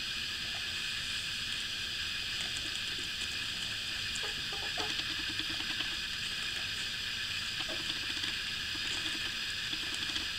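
Steady hiss of background noise, with a few faint, short whimpers from newborn puppies about four to five seconds in and again near eight seconds.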